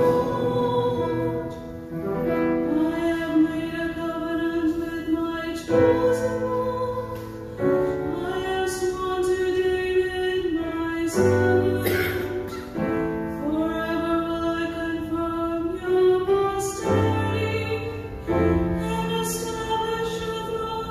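A woman cantor sings the responsorial psalm in slow phrases of long held notes, with instrumental accompaniment beneath.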